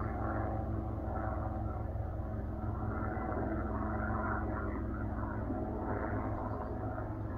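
Steady low engine drone with an even hum.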